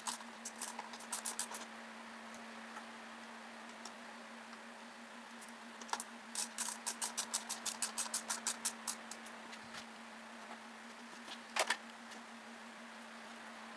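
Ratchet wrench clicking in quick strokes while tightening the engine shroud bolts: a few short bursts about a second in, then a steady run of about a dozen clicks at roughly five a second, and a sharper double knock near the end, over a steady low hum.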